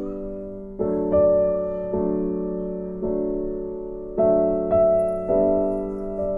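Slow, gentle background piano music: chords struck a few times and each left to fade.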